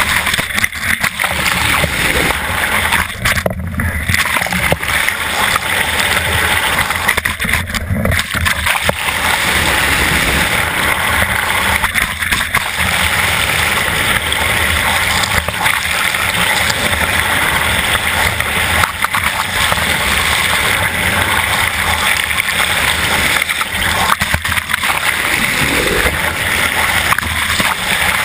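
Steady rushing and gurgling of water streaming past an underwater camera mounted on a moving yacht's bow. Twice, about four and eight seconds in, the hiss briefly thins.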